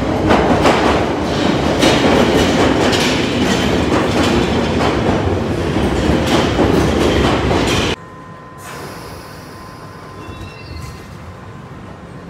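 London Underground Piccadilly line 1973 Stock train running into the platform, a loud rumble of wheels on rail with rapid clattering. About eight seconds in it cuts off suddenly to the much quieter hum inside the standing carriage, with a faint steady tone.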